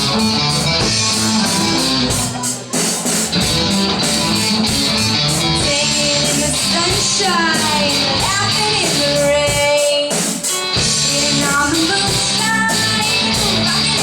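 A rock band playing: electric guitar and drums keep a steady beat, and a voice sings in the middle.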